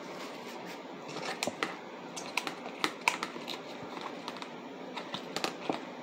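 Irregular sharp clicks and taps of hard clear plastic cups and containers being handled, knocking against each other, starting about a second in, over steady background noise.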